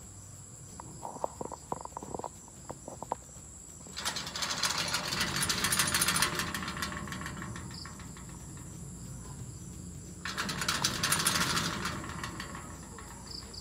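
Metal gate being shaken and rattled. A few light clinks come first, then a long clattering rattle from about four seconds in, and a second shorter burst of rattling near the end.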